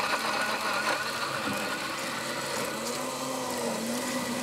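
Countertop blender motor running steadily at speed, whirring as it purées a salsa of tomatoes, rehydrated ancho chilli and herbs.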